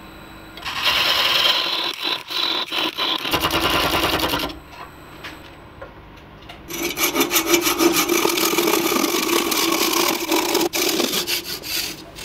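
A cloth rubbing against a stained silver birch vase as it spins on the lathe, for about four seconds. After a short lull, a handsaw cuts through the wood in quick, rhythmic strokes for about five seconds, parting the vase off at the chuck.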